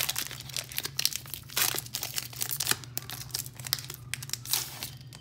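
Foil Pokémon trading card booster pack wrapper being torn open and crinkled in the hands: an irregular run of sharp crackles.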